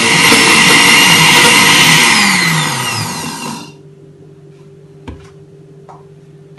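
Countertop blender running at full speed, emulsifying egg, vinegar and oil into thick mayonnaise. It is switched off about three and a half seconds in, and its motor winds down with a falling pitch. A low steady hum and a couple of small clicks remain.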